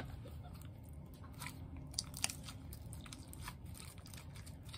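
Large lump of slime squeezed and kneaded in the hands, giving faint, scattered sticky squelches and small wet pops, a couple of them louder about two seconds in.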